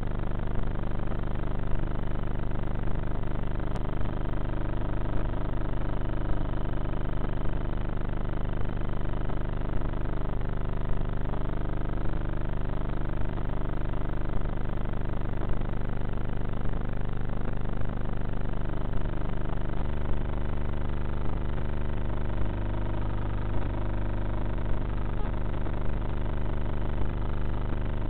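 Electric pusher motor and propeller of a Bixler foam RC plane running steadily in climbing flight, heard from the onboard camera. There is a short tick about once a second, and the low hum shifts about two-thirds of the way through.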